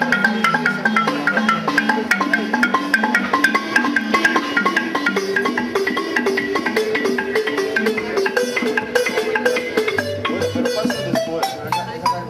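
Live percussion band playing: a wooden xylophone melody of quick struck notes over drum kit and cymbals, with hand drums. The notes thin out near the end.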